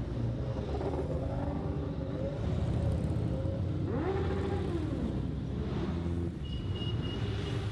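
Several motorcycles riding off one after another, their engines rumbling, with one rev rising and falling about four seconds in. A thin high steady tone sounds near the end.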